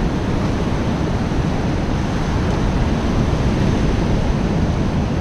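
Ocean surf washing onto the beach, a steady wash of water, with wind rumbling on the microphone.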